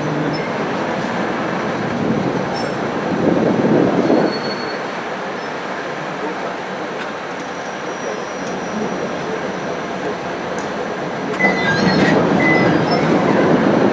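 KiHa 350 diesel railcar heard from inside the cab, running slowly past a station platform: a steady rumble of engine and wheels on rail. It swells louder about three seconds in and again from about eleven seconds in, with a few short, faint squeals near the end.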